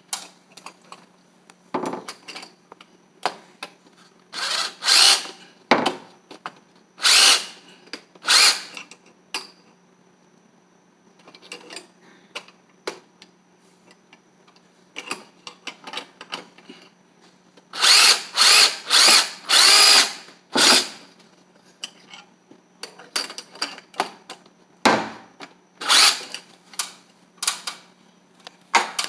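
Cordless drill running in repeated short bursts of about a second each, at a window-blind mounting bracket. A quick run of four or five loud bursts comes about two-thirds of the way through.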